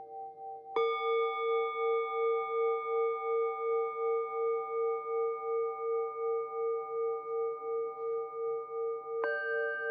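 Japanese orin (Buddhist bowl bells) of Takaoka metalwork, struck once about a second in and again near the end, each ringing on long with a slow pulsing waver in the tone.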